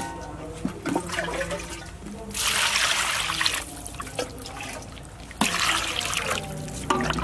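Water splashing in a metal bowl as gutted fish are washed by hand, with two louder stretches of rushing water, about two and a half and five and a half seconds in.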